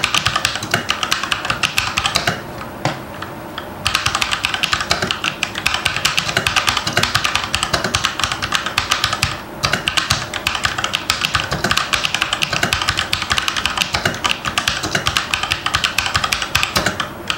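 Fantech MK853 mechanical keyboard with red switches being typed on quickly, dense runs of clacking keystrokes with a couple of brief pauses. Somewhat noisy, though less so than a blue-switch keyboard.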